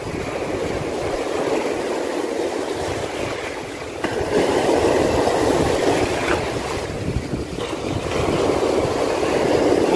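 Shallow sea surf washing and foaming, with wind on the microphone; the wash grows louder about four seconds in.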